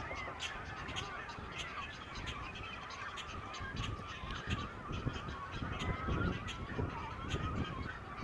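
Geese honking, many overlapping calls running on without a break, over a low rumble.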